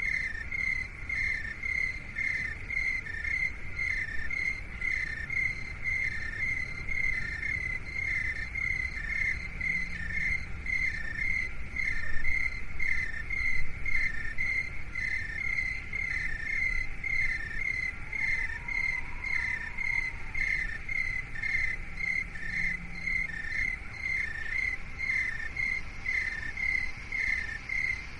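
Chirping insects: an even, unbroken train of short chirps at two slightly different high pitches, over a low rumble.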